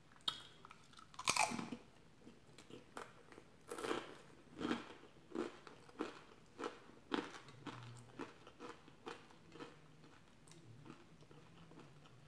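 A crunchy bite into a fried cream cheese rangoon about a second in, then steady chewing of the crispy wrapper, about two crunches a second.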